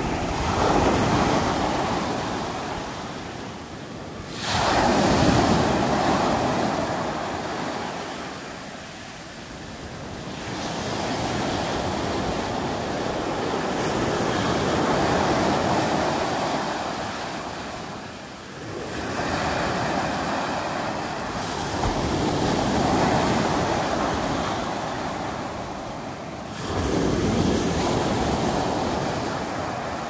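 Small sea waves breaking and washing up a sand-and-pebble beach, heard as a steady surf that swells and fades. A fresh wave surges in with a sudden rise about every seven to eight seconds, then slowly dies away.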